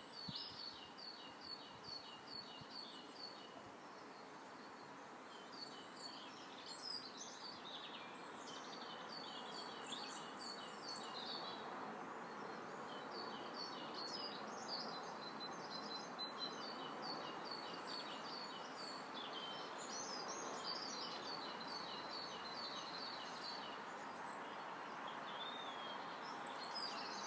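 Birds singing outdoors in quick repeated phrases of short, high notes, over a steady background hiss that grows slightly louder partway through.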